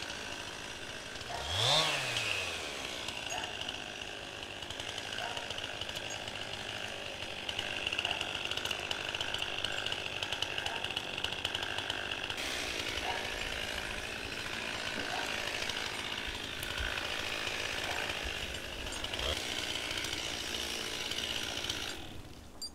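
Chainsaw engine revved up and back down once, about two seconds in, then running steadily until it cuts off just before the end.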